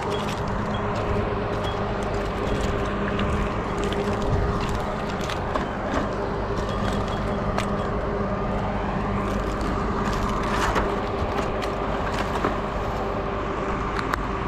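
An engine running steadily at an unchanging pitch, with scattered sharp clicks and taps over it.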